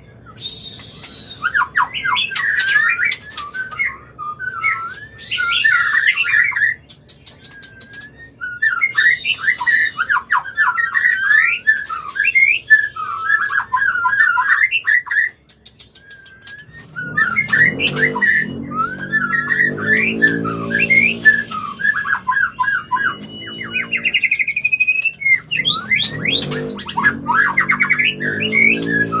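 White-rumped shama in breeding condition singing: fast, varied whistled phrases broken by short harsh rasping notes, in bursts with brief pauses. Past the halfway mark, a low pulsing sound runs under the song.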